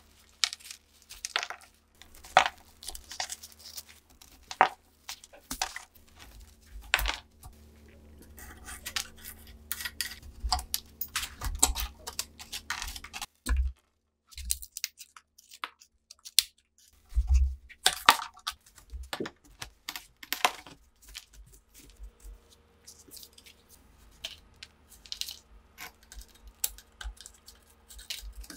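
Dried mud crust being cracked and picked off a rusted STEN Mk2 submachine gun, with a metal pick scraping: a dense run of small crackling clicks and scrapes as clumps break away and drop. There is a pause of about three seconds about halfway through.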